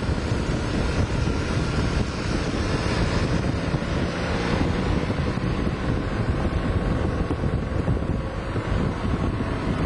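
Steady wind buffeting the microphone while moving at speed, over a continuous low rumble of rolling noise.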